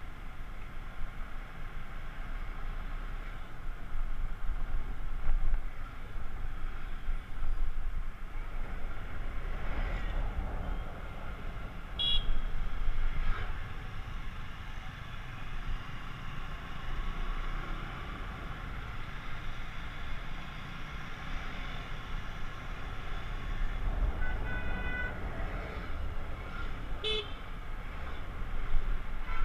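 Aprilia SR 125 scooter riding through city traffic: a steady low rumble of engine and road noise, with vehicle horns beeping briefly about twelve seconds in and again a couple of times near the end.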